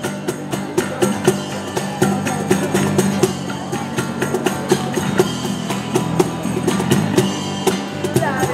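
Live acoustic band playing: a cajón keeping a steady beat under electric guitar and acoustic guitar.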